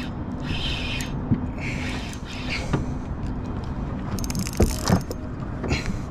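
Spinning reel working while a hooked fish is played on a bent rod: the reel's mechanism whirs and clicks in several short spells, over a steady low hum.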